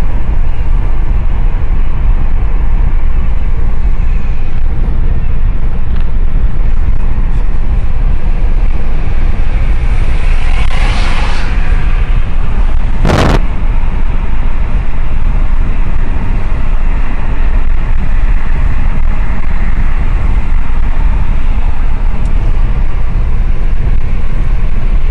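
Steady low rumble of road noise inside a moving car. About ten seconds in, a hiss swells and fades, and a sharp click comes about three seconds later.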